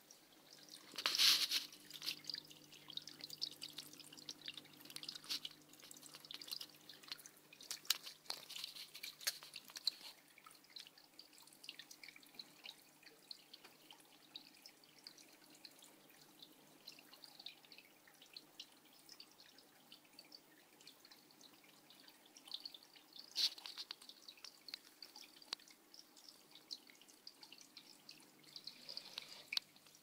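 Small homemade waterfall in a snake vivarium, water dripping and trickling in irregular drops and splashes, with a louder splash about a second in. A faint steady low hum sits underneath.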